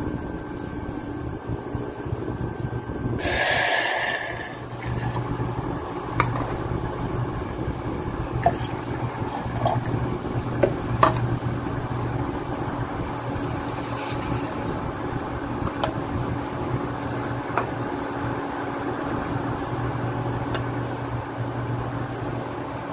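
Liquid poured into a stainless steel saucepan, a short rushing splash about three seconds in. Then a steady hum from the induction cooktop, with scattered light clinks against the pan as the pickling solution is mixed.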